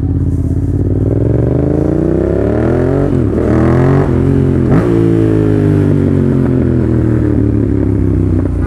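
Yamaha FZ-07's parallel-twin engine running through a full aftermarket exhaust, very loud, as the bike accelerates. The revs climb, drop sharply twice about a second and a half apart as it shifts up, then climb slowly again. The exhaust has grown far louder than normal from some change the rider could not explain.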